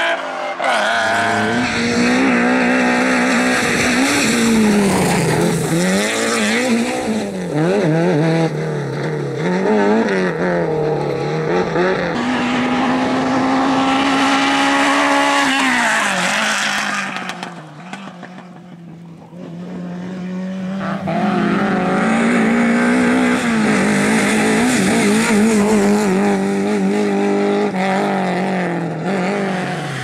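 Rally car engines revving hard in turn, their pitch swinging up and down with throttle and gear changes. A stretch of steady high revs ends in a fall and a brief quieter gap just past halfway, then another car revs up and down.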